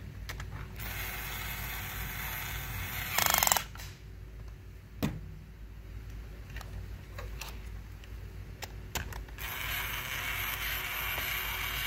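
Kid Nitro set's battery-powered red plastic toy drill whirring as it drives the wheel screws into a toy car, in two runs. The first starts about a second in and ends with a brief, louder rattle; the second starts near the end. A single knock about five seconds in.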